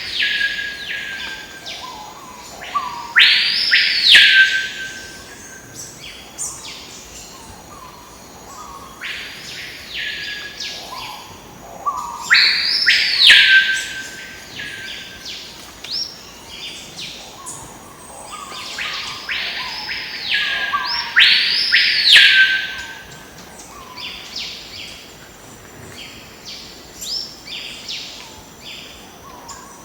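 Several birds calling: loud, drawn-out whistled calls that sweep sharply up, hold about a second, then drop away, repeating in overlapping groups every few seconds.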